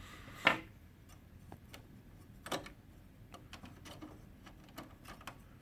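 Light plastic clicks and ticks from a laser printer's pickup roller and its plastic locking tabs being worked by hand to free the roller from its axle: a sharper click about half a second in, another about two and a half seconds in, then a run of faint ticks.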